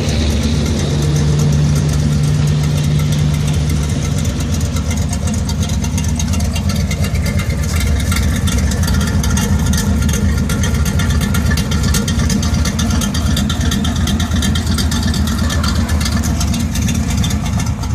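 Chevrolet 305 V8 with a Crane 274H06 camshaft idling cold: a steady, lumpy, choppy idle, the cam's lope at its roughest before the engine warms up.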